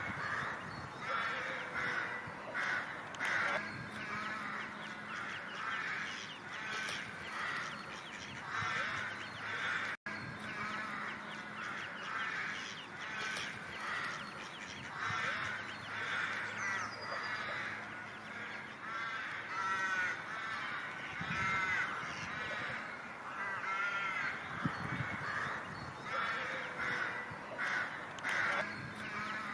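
Ducks calling: many overlapping, rapidly repeated quacks and calls, with a momentary break about ten seconds in.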